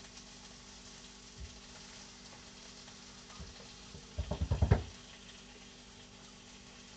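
Steak sizzling steadily in an oiled frying pan. About four seconds in, a brief rapid rattle of knocks.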